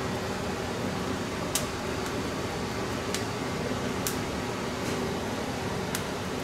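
Open fire of dry stalks burning under a bonito loin on a wire grill: a steady rushing noise with about half a dozen sharp, irregular crackles.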